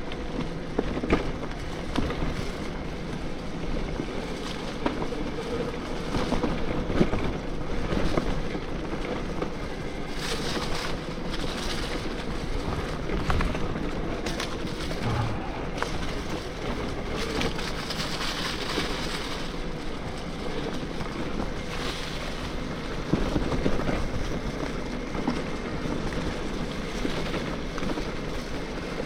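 Electric mountain bike riding over a dirt trail: wind buffeting the microphone and tyres rumbling, with a faint steady whine and scattered knocks from the rough ground.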